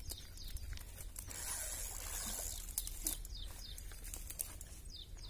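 Small birds calling, with many short falling chirps repeated throughout. Under them is a faint low rumble, with a soft hiss for about a second near the middle.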